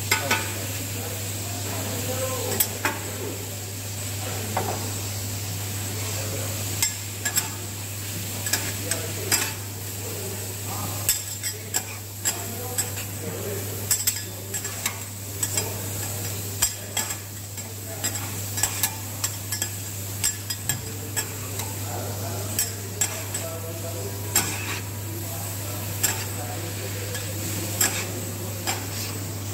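Metal spatulas scraping and clacking against a steel teppanyaki griddle as vegetables are stir-fried, over a steady sizzle. The clacks come irregularly throughout, several in a second at times.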